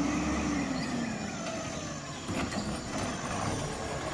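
Automated side-loader garbage truck's diesel engine running steadily with a low hum, while its hydraulic arm grabs and lifts a curbside cart; a pitched tone falls away in the first second and a half.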